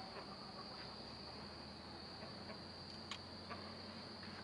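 Steady high-pitched insect trill, with a few faint clicks of the steel trap being handled, the clearest about three seconds in.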